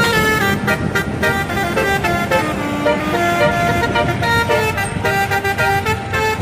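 Indonesian bus telolet horn playing a quick melody of stepping notes, several trumpets sounding together, without a break.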